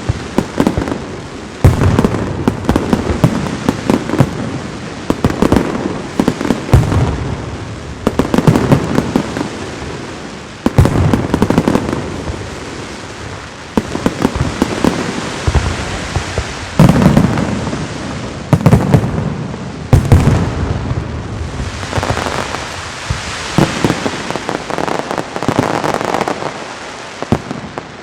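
Castillo aerial fireworks display: shells burst one after another in loud bangs every second or two over continuous dense crackling.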